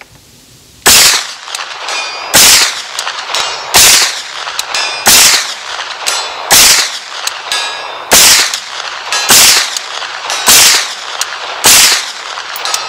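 Foxtrot Mike 9mm rifle with a 16-inch barrel firing nine single shots in steady slow fire, one about every second and a half. Faint metallic pings from a steel target downrange fall between the shots.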